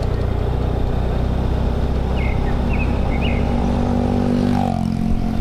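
Motorcycle engine running under way with wind and road noise; its note climbs and then drops sharply near the end. A few short bird chirps sound faintly in the middle.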